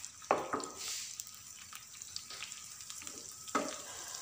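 Chopped garlic and ginger sizzling in hot desi ghee in a frying pan while a wooden spatula stirs and scrapes them; a few sharper scrapes stand out, near the start and about three and a half seconds in.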